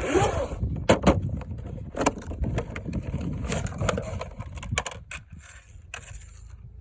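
Handling noise from unboxing a toy RC buggy: an irregular run of sharp clicks and knocks over rustling, thinning out after about five seconds.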